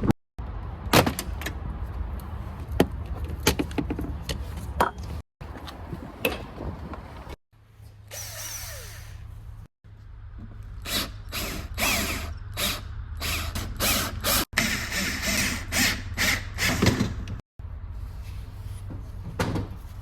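Tools and plastic interior trim of a BMW E90 door clicking, knocking and rattling while the door handle is removed and fitted, in several short cuts. A brief whirring noise comes about eight seconds in.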